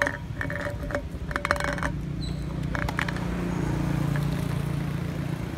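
Snack can scraping and rattling on gravel in short scratchy bursts as a young macaque pushes and paws at it, over a low steady hum that swells in the second half.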